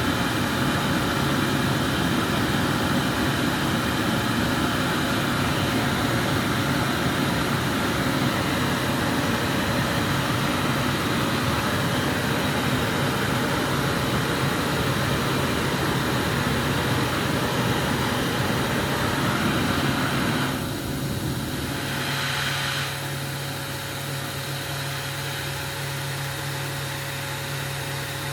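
Steady rushing of a glassblower's bench burner flame over a low machine hum. About twenty seconds in the rushing stops and a brief hiss follows. A steady hum with a faint tone is left.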